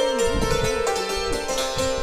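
Ukrainian tsymbaly (hammered dulcimer) played with hand-held hammers: struck metal strings ringing together, with a fast tremolo of repeated strikes on one note.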